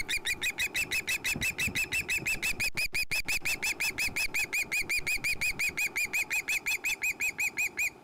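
Juvenile osprey's food-begging calls: a rapid, even series of shrill squealing notes, about five or six a second, that stops abruptly near the end. The calls signal a hungry fledgling demanding fish from the adult male.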